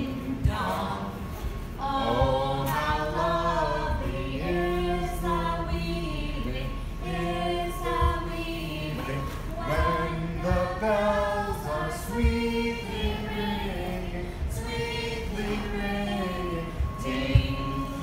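A small group of voices singing together without instruments, a flowing melody held on long notes, with a few sharp thumps from feet on the floor, the loudest near the end.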